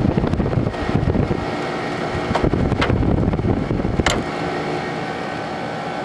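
Comfort Aire 15,100 BTU window air conditioner running with its fan and compressor on, a steady hum with several fixed tones. For the first four seconds there is low buffeting on top, and three sharp plastic clicks come as the vent louvers are moved.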